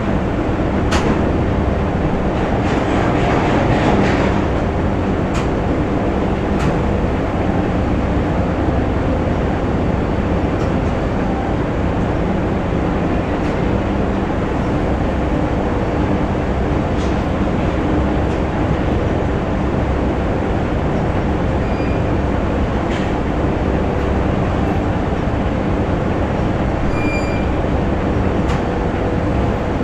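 Factory machinery running: a steady, dense mechanical rumble with scattered sharp clicks and knocks, and a brief high beep near the end.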